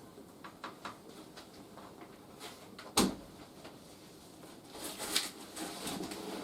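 Light clicks and knocks, then one sharp bang about three seconds in, followed by scraping and rustling near the end.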